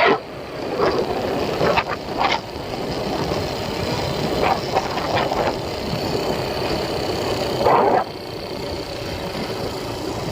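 ATV engine running steadily, with a few short, sharp sounds over it; the loudest comes about eight seconds in.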